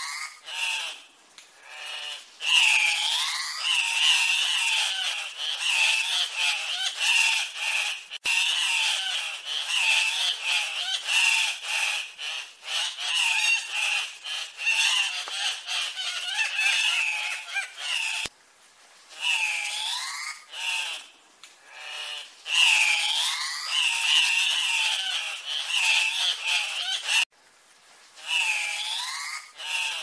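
Andean cock-of-the-rock calling repeatedly, several birds overlapping in bouts separated by short pauses.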